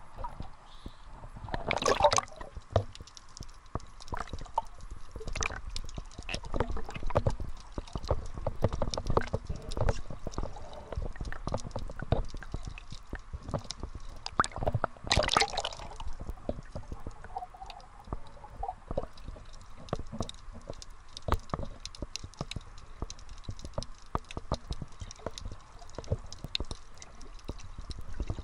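Water sloshing and bubbling around an action camera as it dips from the sea surface to underwater, heard muffled through the camera housing. Many small clicks run throughout, with two louder splashy bursts, one about two seconds in and one about halfway through.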